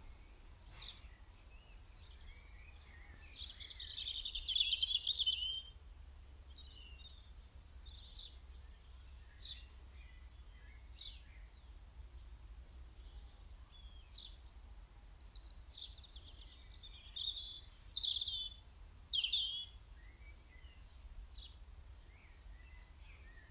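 Small birds singing: a quick twittering phrase about three seconds in, another louder bout about two-thirds through, and short single chirps in between. Under it runs a steady low rumble.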